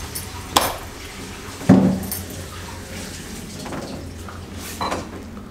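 Metallic clicks and clinks at a front door as it is being unlocked, with one heavy thump nearly two seconds in.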